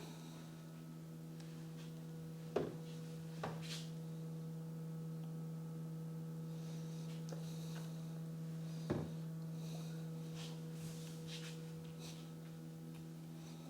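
Steady low electrical hum with a few fainter steady tones above it, broken by a handful of soft clicks or knocks, at about two and a half, three and a half and nine seconds in.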